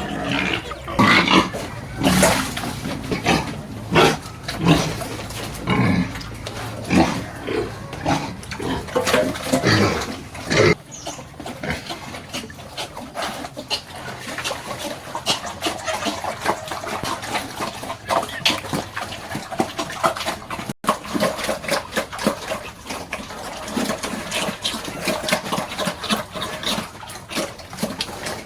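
Pigs grunting and calling: loud separate calls for the first ten seconds or so, then a denser, steadier din of many pigs.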